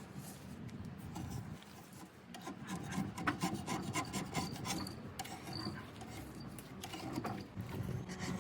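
Wood being abraded by hand, rubbed back and forth in quick, irregular strokes, with the strokes getting busier a couple of seconds in.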